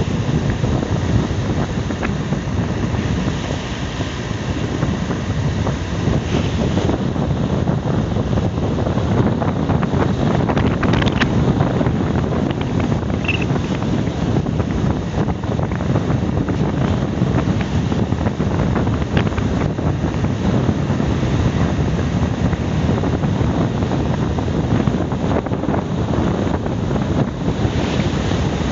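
Steady rumble of wind buffeting the microphone together with the road noise of a car driving along wet streets.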